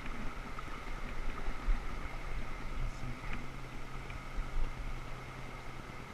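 Steady rushing of fast, broken river water over rocks, with a couple of brief low bumps on the microphone.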